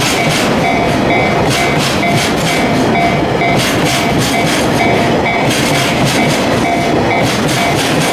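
Freight train of gasoline tank wagons rolling past, wheels clacking over rail joints in repeated groups of clicks above a steady rumble. A level crossing warning bell rings in a steady on-off rhythm throughout.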